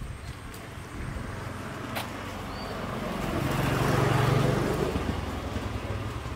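A motor vehicle passing by: an engine hum and its noise swell to a peak about four seconds in, then fade.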